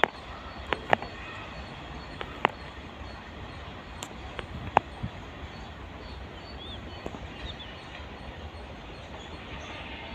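Steady outdoor background noise with a low rumble, broken by a handful of sharp clicks and a couple of faint bird chirps.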